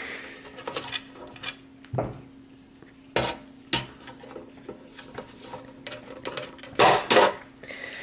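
Pliers and wire connectors clicking and clinking against one another inside a metal electronics enclosure as wires are handled, with a longer scraping rustle near the end. A faint steady hum runs underneath.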